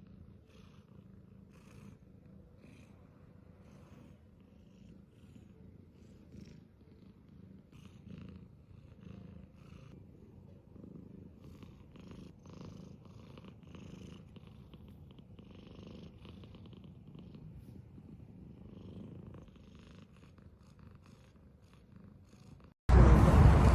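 Domestic cat purring close up: a faint low rumble that comes in slow swells. Just before the end a much louder noise cuts in suddenly.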